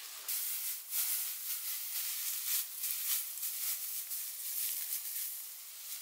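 Dry straw thatch rustling and crackling as it is handled and tucked into place, in uneven hissy swishes.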